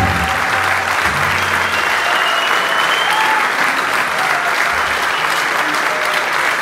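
Audience applauding a live band at the end of a song: dense, steady clapping.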